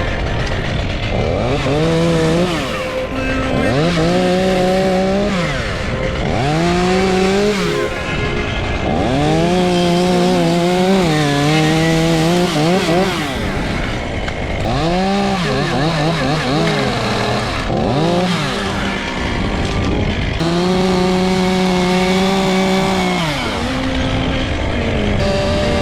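Chainsaw cutting wood, revved up to full speed, held there, then let back to idle again and again in bursts of a second or more each.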